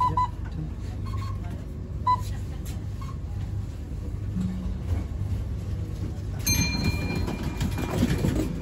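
Z3-class tram running along the track, heard from inside at the doors: a steady low hum of motors and wheels on rail. About six and a half seconds in it gives way to a louder rattle with a faint high ringing.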